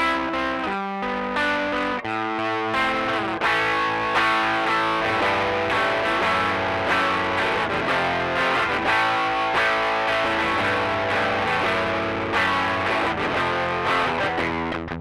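Electric guitar played through a Rocktron Austin Gold overdrive pedal set to a light, moderate overdrive with drive and pre-bass at 12 o'clock. A few ringing notes give way to fuller chord playing about two seconds in.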